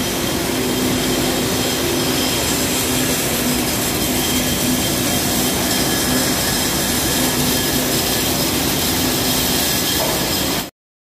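Steady, loud mechanical running of concrete-placing machinery at a pile-cap pour, with a few constant whining tones over a rushing noise; it cuts off suddenly near the end.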